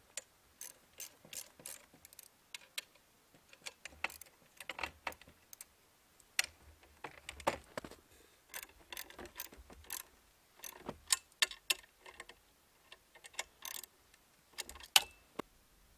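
Light metal clicks, clinks and knocks of a chainsaw mill's frame being handled and adjusted by hand, coming irregularly, the sharpest about a second before the end.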